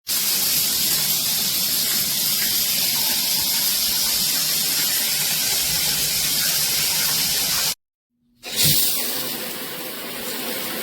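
High-pressure shower head spraying water: a steady, dense hiss. It cuts out abruptly for about half a second near the end, then comes back a little quieter after a low thump.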